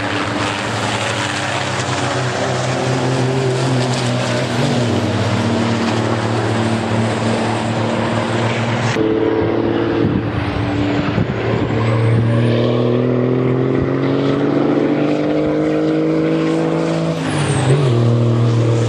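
Diesel engines of racing trucks running hard on the circuit, their pitch drifting and slowly rising as they accelerate. The sound cuts suddenly to another truck about nine seconds in, with a brief change in pitch near the end.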